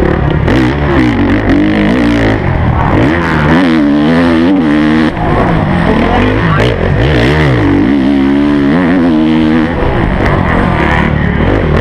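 Onboard sound of a Honda CRF motocross bike's four-stroke single-cylinder engine, revving up and dropping back again and again as the throttle is worked around the track, with a brief dip in level about five seconds in.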